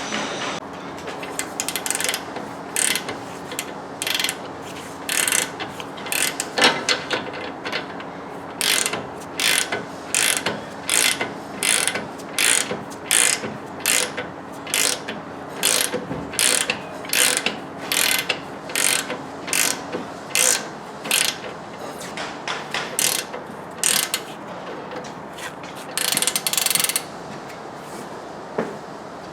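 Hand ratchet wrench worked in repeated short strokes, its pawl clicking with each stroke, as bolts on the front suspension arm are run in and tightened.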